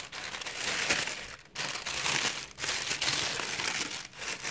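Thin tissue paper crinkling and rustling as a hand pulls it open and pushes it aside, in several bursts with short pauses between.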